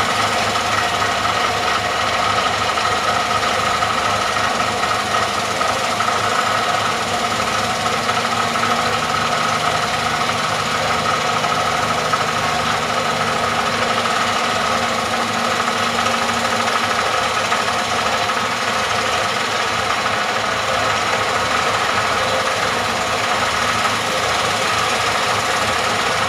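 Vibratory pile hammer running steadily on a 1650 mm steel casing, driving it into the ground with a continuous fast rattle and hum.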